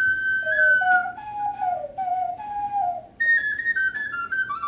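Two clay ocarina-type wind instruments answering each other in improvised call and response. A high, pure whistling tone is held, a lower instrument replies with short sliding notes, and after a brief break about three seconds in, the high one returns with quick stepping notes.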